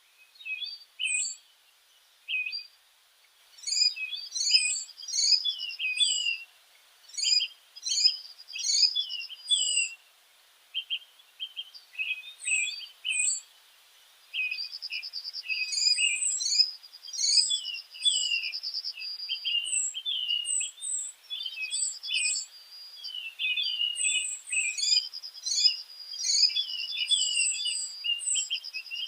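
Small birds chirping and calling, with a dense mix of short high notes and rapid trills in overlapping bursts and brief pauses, busiest in the second half.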